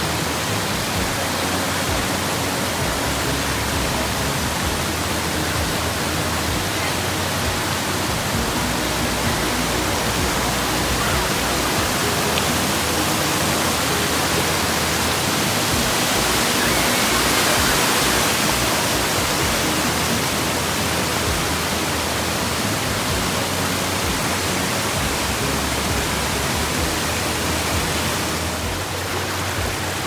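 Water rushing steadily over a rock cascade in a small waterfall, a continuous hiss of white water that swells for a few seconds past the middle.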